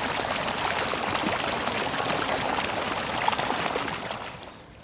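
Water splashing and running, a steady rush with many small droplet clicks, fading away near the end.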